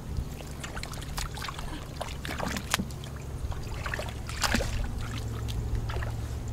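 Hands squelching and splashing in shallow muddy water while groping for fish: a string of short, irregular wet slaps and sucks, over a steady low rumble.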